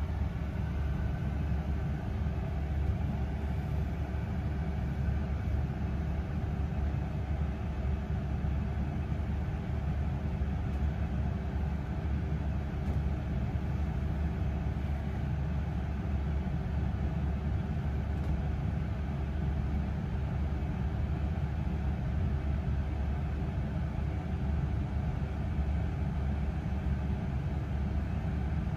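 Steady low rumble inside a London double-decker bus, heard from the upper deck as the bus runs slowly and stands in traffic, with a faint steady hum over it.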